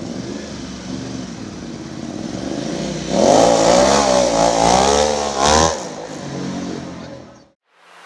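2014 Ducati Diavel's L-twin engine breathing through a Termignoni full exhaust system with carbon silencer, accelerating away and passing close by. The exhaust note is loudest from about three seconds in, its revs rising and falling for a couple of seconds, then it fades and cuts off near the end.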